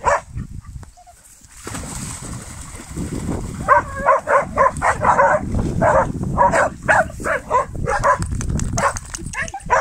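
Dog barking in a quick repeated run, about two to three barks a second, starting about three and a half seconds in and stopping near the end, over a low rumbling noise.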